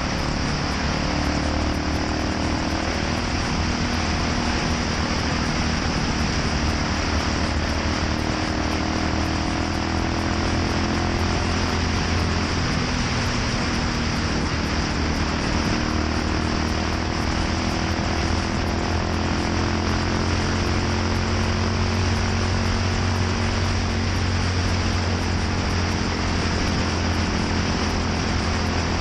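Yamaha SR400's air-cooled single-cylinder four-stroke engine running through a NitroHeads aftermarket muffler, a steady exhaust note whose pitch drifts slightly up and down.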